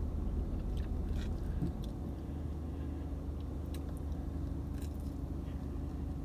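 Open-mouthed chewing and lip smacking, short wet clicks scattered through, over a steady low hum inside a car. The smacking comes from eating with a fresh snake-eyes tongue piercing.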